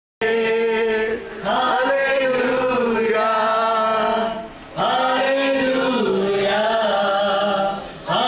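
Worship song led by a man singing into a microphone, in long drawn-out chant-like phrases that break off briefly about a second, four and a half seconds and eight seconds in.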